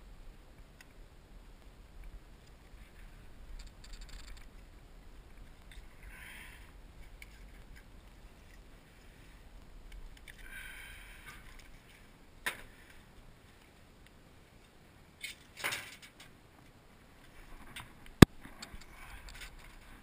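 Hand-handling noises of trimmer line and equipment: rustling and scraping with a few sharp clicks, the loudest a single sharp click about two seconds before the end.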